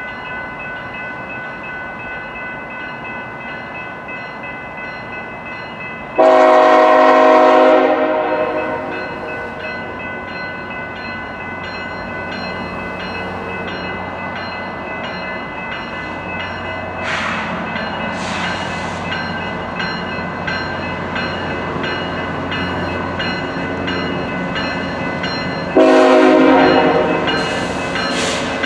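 BNSF diesel locomotives hauling a coal train approach, their engines running louder as they near. The air horn sounds a long blast about six seconds in and another near the end, each about two seconds.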